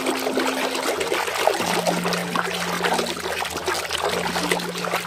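Water splashing and sloshing as a hand churns and scrubs a toy in a tub of foamy water. The splashing is continuous and busy, with many small splats.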